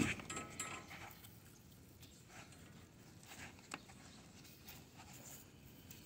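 Near silence: faint room tone with a few light clicks scattered through it.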